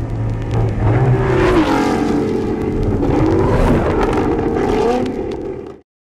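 A car engine revving, its pitch rising and falling several times, then cutting off abruptly near the end.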